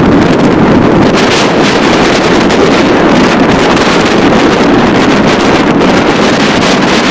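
Wind rushing over the microphone of a camera on a moving motorcycle, with the bike's running and road noise mixed in underneath; loud and steady throughout.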